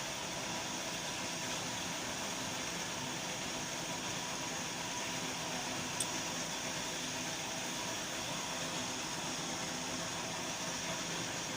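Steady loud background noise, a hiss with a faint hum in it, of the kind a fan or air conditioner gives, with one small click about halfway through.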